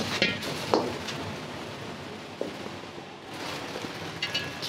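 Food sizzling steadily in a hot wok, with a few sharp metal clinks of a utensil against the pan near the start and a ringing clink near the end.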